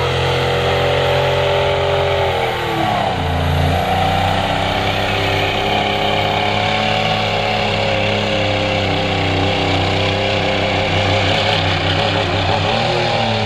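Tractor engine running hard under load while pulling the sled. Its pitch drops sharply about three seconds in and climbs back, holds steady, then sags again near the end.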